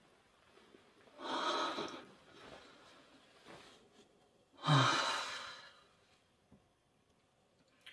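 A man sighing heavily in his sleep: two long breathy exhalations, one about a second in and a louder one near the middle that starts with a low voiced note.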